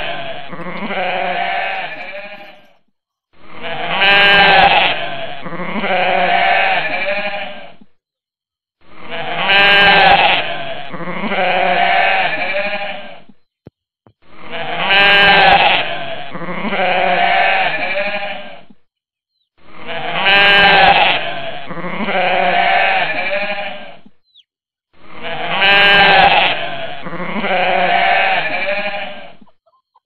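Goat bleating: a pair of long, quavering bleats, the second quieter, repeated six times in exactly the same way with short silences between, as a looped recording.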